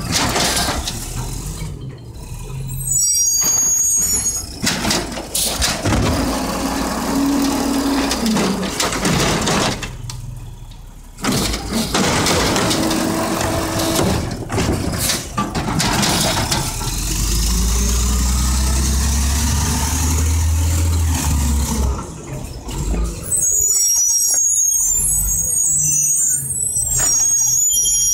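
Mack LE garbage truck with an Amrep automated side-loader arm working at the curb: the diesel engine runs and revs up for the hydraulics for several seconds in the middle, with a rising hydraulic whine and air-brake hiss. High squeaks come about three seconds in and again over the last few seconds.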